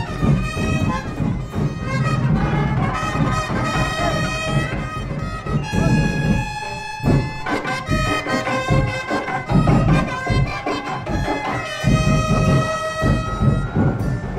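Parade music with brass horns playing held notes over a steady drum beat.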